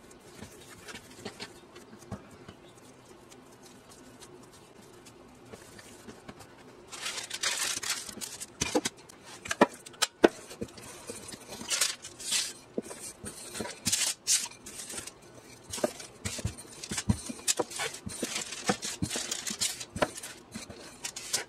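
A wooden rolling pin rolling out dough on a countertop: from about seven seconds in, repeated stretches of rubbing, rolling noise with sharp clicks and knocks as the pin is pushed back and forth. Before that there is only faint handling of the dough.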